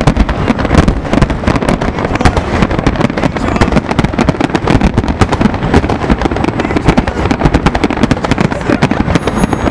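Large aerial fireworks display: a dense, continuous run of shell bursts and crackle, the bangs following one another so closely that they overlap with no pause.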